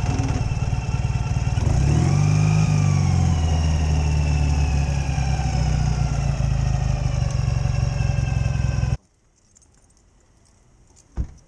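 Sidecar motorcycle's engine running steadily, revving up briefly about two seconds in and then settling again. It stops abruptly near the end, followed by a single sharp knock.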